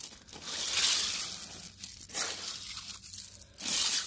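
Wet river gravel and shell crunching and grating on a sifter screen as a hand rakes through it, in a few surges.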